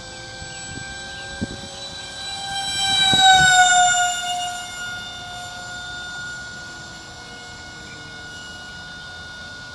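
Electric radio-controlled model airplane's motor and propeller whining steadily. About three seconds in it swells louder and drops in pitch as it passes close by, then carries on at a lower, steady pitch.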